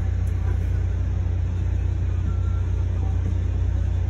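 Steady low rumble inside an Amtrak Silver Star passenger coach as the train rolls along the track.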